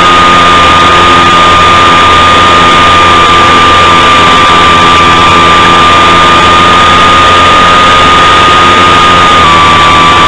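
Electric motor and propeller of an RC biplane running at a steady cruise throttle: a constant high whine over a noisy rush, very loud on the onboard camera's microphone. The whine drops slightly in pitch near the end.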